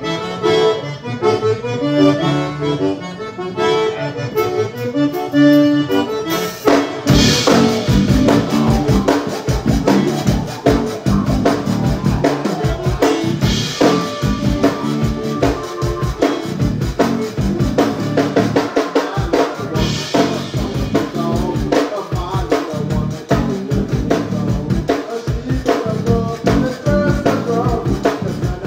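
Live zydeco band: accordion playing chords alone for about the first seven seconds, then the drum kit comes in with a steady beat and the full band plays on.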